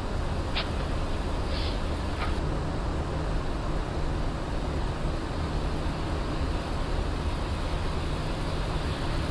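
Steady rushing hiss and low hum of an Airbus A350-900 flight deck in flight, with three faint short high chirps in the first two seconds or so.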